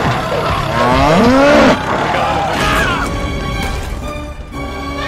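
Cow mooing sound effect: one long call that rises and then falls in pitch, in the first two seconds, followed by quieter background sound.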